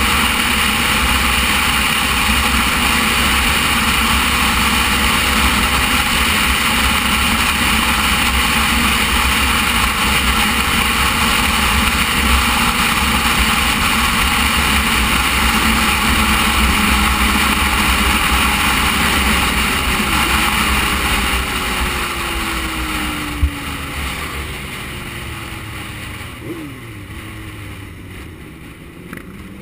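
Motorcycle riding at speed, heard from the bike itself: a steady rush of wind noise over the engine. About twenty seconds in the bike slows: the noise drops away and the engine pitch falls as it decelerates. A single sharp click comes a couple of seconds later.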